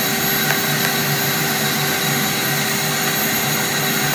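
Shop vacuum running steadily with a constant hum and a whine, used to clear filings from a sliding door's aluminum track after filing. A couple of faint ticks come in the first second.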